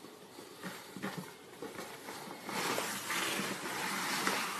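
A cat scrabbling and rolling on a sheet of cardboard: a few faint taps at first, then a rustling, scraping scuffle that grows louder about two and a half seconds in.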